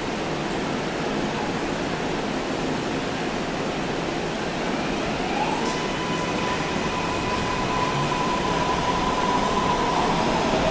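MARTA rapid-transit train pulling out of the station under power. Over a steady rumble, an electric whine from the motors rises about five seconds in and then holds one pitch, and the train grows louder near the end as it gathers speed.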